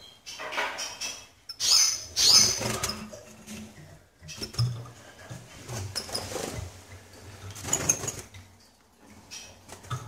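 Caged European goldfinches flapping about, their wing flutter coming in several short bursts, with a few high chirps, loudest about two seconds in.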